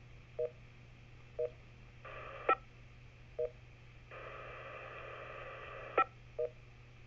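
Kenwood two-metre FM transceiver's receiver on the 147.105 repeater: two bursts of hiss, one brief and one about two seconds long, each ending in a sharp click like a squelch tail. Short mid-pitched beeps sound about once a second throughout.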